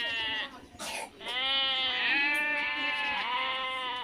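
An animal bleating: a call that breaks off about half a second in, a brief click, then one long drawn-out bleat lasting nearly three seconds.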